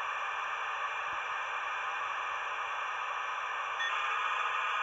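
U.S. Robotics 56K Faxmodem's speaker playing the dial-up handshake: a steady hiss of modem training noise while the two modems negotiate the connection. The hiss shifts slightly about four seconds in.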